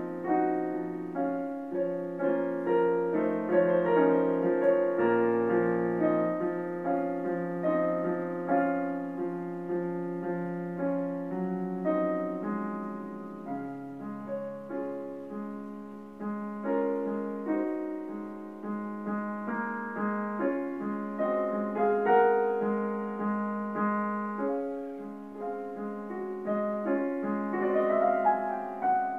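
Piano music: a melody over held chords and bass notes, played at an even pace.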